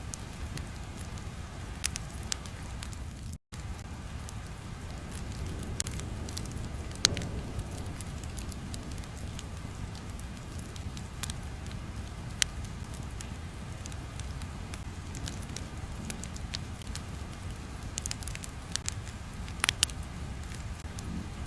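Crackling fire ambience: a steady low hiss and rumble with irregular sharp pops, the loudest a little after 7 s and a pair near the end. The sound cuts out for a split second at about 3.5 s.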